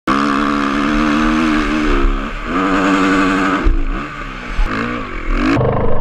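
Dirt bike engine held at high revs. The revs drop and climb back about two seconds in, then fall and rise again near the end before the sound turns duller.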